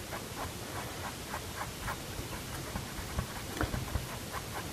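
Paintbrush bristles flicking across a stretched canvas: a quick run of short, faint scratchy strokes, about three a second.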